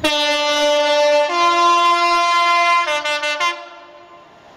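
Two-tone air horn of a Class 66 diesel locomotive sounding loudly: a low note, a step up to a higher note, then back to the low note with a few short breaks before it stops about three and a half seconds in.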